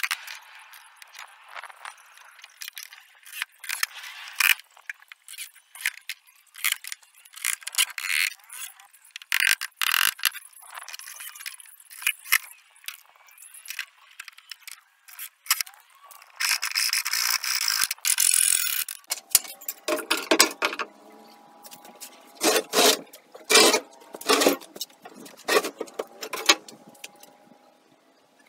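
Pallet wood boards being handled and fitted: scattered knocks, clicks and scrapes of wood on wood, with a steady hiss lasting a couple of seconds a little past the middle.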